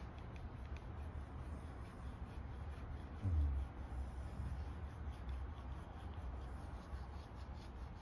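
Y-shaped roller massager with bristled rollers rubbing and rolling over a Shiba Inu's fur, a soft scratchy rub with faint ticks over the low rumble of handling. A brief low thump about three seconds in.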